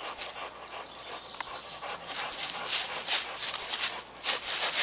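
A dog panting in quick, uneven breaths that grow louder about halfway through.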